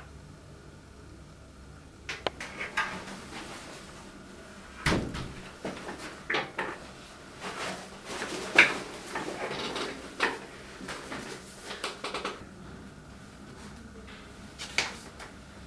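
Handling sounds of a person coming into a small room and sitting down: a glass door and an office chair being moved, and papers rustling, heard as a string of knocks, clicks and rustles from about two seconds in until about twelve seconds in, then quieter.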